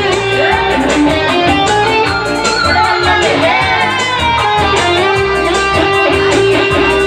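Instrumental band music over a sound system: a guitar-led melody with long held notes over a steady beat, the intro of a song before the singer comes in.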